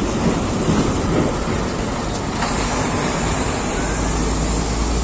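Heavy vehicle engines running with steady traffic noise, a loud, continuous rumble; a faint rising whine comes in about halfway through.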